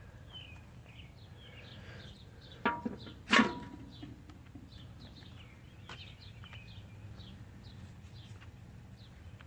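A Firefly ferrocerium rod from a Swiss Army Knife struck twice in quick succession, about three seconds in, throwing sparks. The second scrape is sharper and louder. Small birds chirp throughout.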